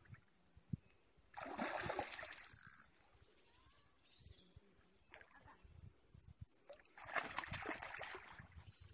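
A hooked tarucha thrashing at the water's surface, splashing twice: about a second and a half in, and again from about seven seconds.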